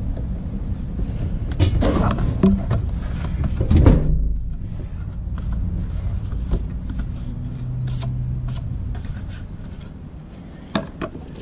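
Rustling and light clicks of handling close to the microphone over a low rumble, busiest in the first four seconds; the rumble slowly fades toward the end.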